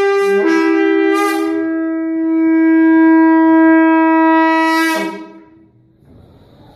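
A wind instrument sounds a short note, then holds one long steady note for about four and a half seconds, which stops about five seconds in.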